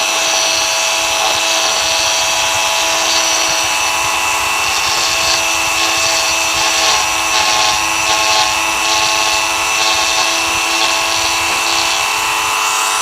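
Dremel rotary tool running at speed with a steady high whine, rougher in the middle stretch.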